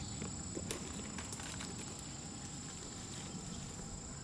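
Footsteps walking over rough ground: a few scattered crunches and taps at an uneven pace.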